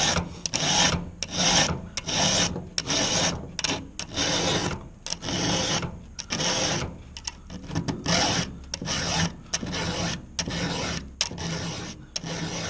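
Round chainsaw file rasping across the steel cutters of a saw chain in repeated, evenly paced strokes. This is hand-sharpening the chain: filing out the gullet and working across the cutter's top plate.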